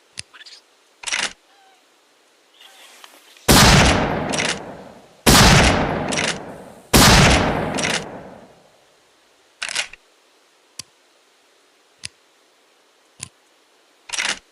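Three shots from a Winchester Model 70 bolt-action rifle, under two seconds apart, each loud and followed by a long echoing fade. Short sharp metallic clicks come before, between and after the shots, typical of a bolt being worked.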